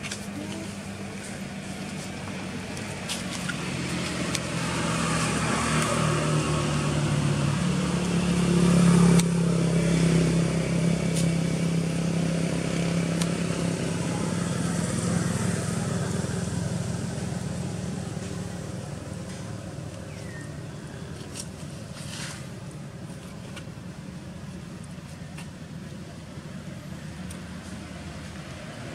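A motor vehicle driving past on a road: its engine sound builds over several seconds, is loudest about nine seconds in, then fades away over the next ten seconds.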